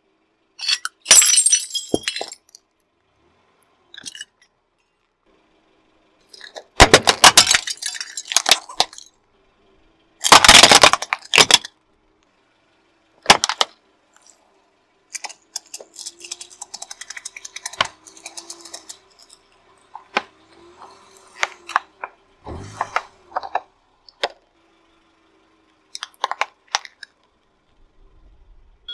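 A car tyre rolling over and crushing hard objects, one after another. Three loud bursts of cracking, crunching and clinking as things break, then a sharper snap, then many lighter crackles and crumpling noises.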